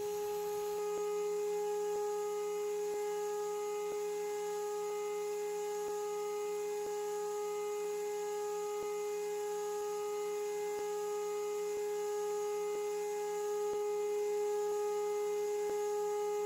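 Water-cooled 2.2 kW Chinese CNC router spindle running steadily as it mills an aluminium block, giving a constant high whine. A faint tick repeats about once a second.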